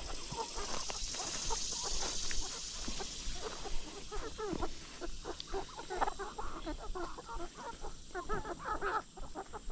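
Flock of chickens clucking while they forage, with many short calls overlapping one another.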